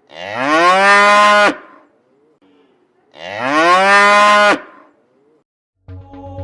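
Cow mooing twice, the same long moo played a second time about three seconds later, each call rising in pitch and then held. Music starts near the end.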